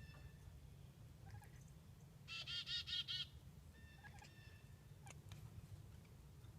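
Cat chirping: a quick run of about seven bird-like chirps about two seconds in, with fainter, longer calls before and after.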